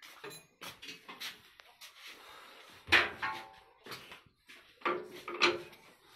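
Irregular metal clanks and knocks as the starting handle and tools are worked on an old Ruston Hornsby diesel engine that is not yet running, the loudest clank about three seconds in and two more near five seconds, some of them ringing briefly.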